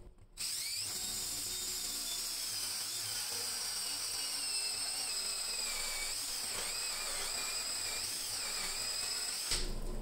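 Cordless drill spinning a 2-1/8-inch hole saw through a wooden door to bore the lock cross-bore: a steady motor whine that starts about half a second in and stops just before the end. Its pitch drifts a little lower over the first few seconds.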